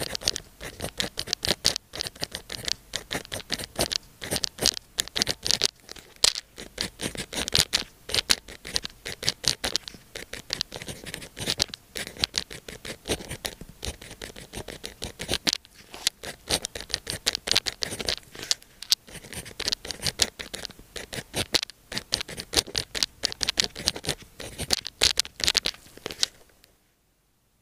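Pen writing on sticky-note paper: quick scratchy strokes in close succession, stopping abruptly near the end.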